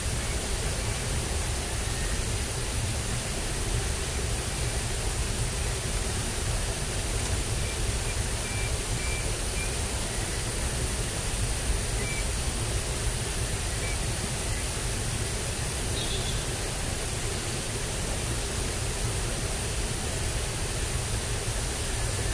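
Steady outdoor rushing noise with a low rumble underneath and a steady high hiss, with a few faint short chirps.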